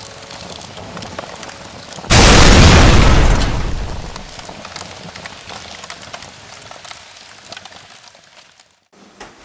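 A sudden loud explosion about two seconds in, dying away over the next two seconds, over a steady crackle of burning fire with scattered small pops. The sound cuts off abruptly near the end.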